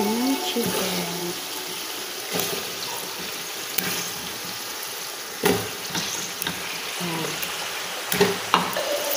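Raw chicken pieces dropped one at a time into a large aluminium pot of vegetables in hot liquid, each making a wet splash and knock against the pot over a steady hiss from the pot. The loudest knock comes about halfway through, with two more near the end.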